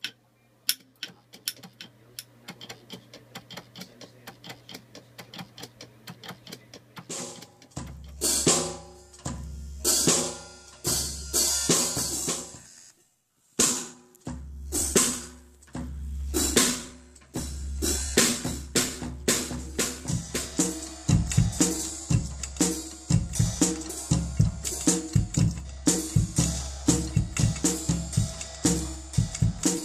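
Quiet, regular clicking of a small solenoid for the first seven seconds or so. Then a solenoid-driven automated drum kit plays a beat with sustained low bass notes under it. The beat breaks off briefly about halfway and grows busier toward the end.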